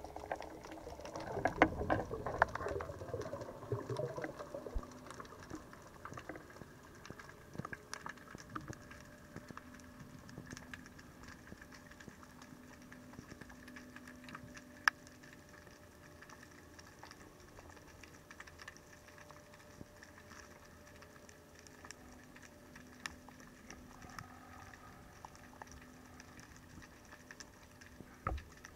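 Underwater reef ambience: a steady scatter of sharp clicks and crackle, typical of snapping shrimp, over a faint steady hum. A louder rush of noise swells about a second in and fades over the next few seconds.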